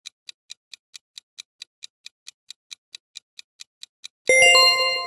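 Quiz countdown-timer sound effect: fast, even clock-like ticking at about four to five ticks a second, then about four seconds in, as the count reaches zero, a sudden bright ringing chime that fades away, signalling time is up.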